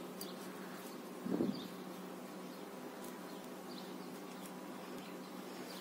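Faint steady low hum, with one brief short sound about a second and a half in.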